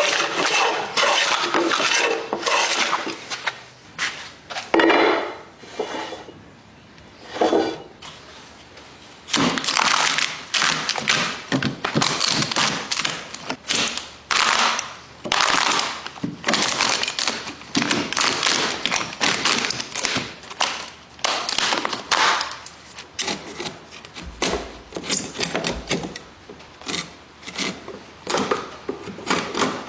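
Wood being worked by hand: irregular knocks and taps mixed with scraping and rubbing, with a quieter stretch a few seconds in.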